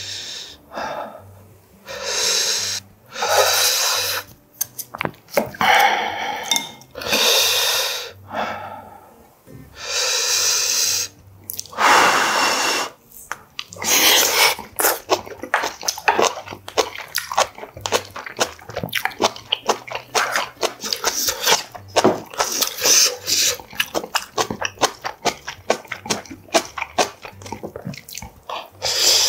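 Close-miked eating of hot kimchi-braised noodles and pork ribs. For the first half there is a run of separate breathy rushes of air, each about a second long, over the hot food. About halfway through it turns into steady chewing with rapid wet clicks and smacks.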